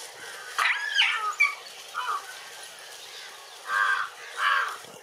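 An animal calling several times: a cluster of short calls, then two longer calls near the end.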